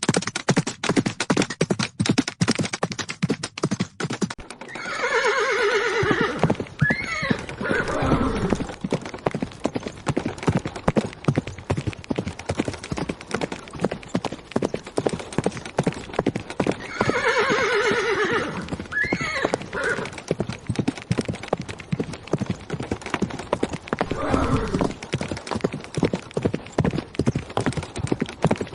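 Horses galloping, with rapid, dense hoofbeats throughout. A horse neighs about five seconds in and again around seventeen seconds, and there is a fainter call later on.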